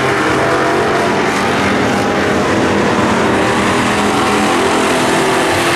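Several dirt-track stock cars' engines running together on a clay oval: a steady, dense engine drone of overlapping pitches.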